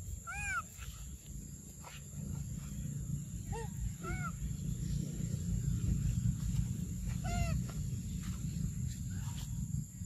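Infant macaque giving short arching squeaks, about four over several seconds, over a steady low rumble.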